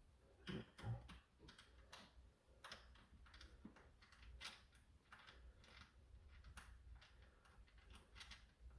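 Faint, irregular small clicks and taps of a screwdriver working the battery-door screw on a plastic toy blaster, several a second.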